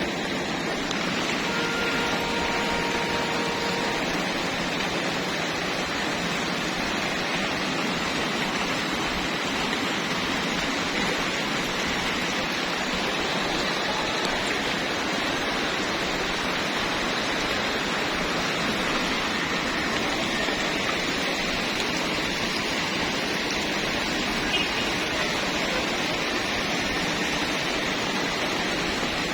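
Sea surf, a steady rushing wash of waves. A faint, brief tone sounds about two seconds in.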